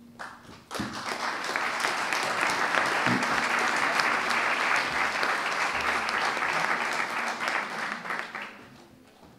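Audience applause: steady clapping from a room full of people that starts just under a second in and fades out near the end.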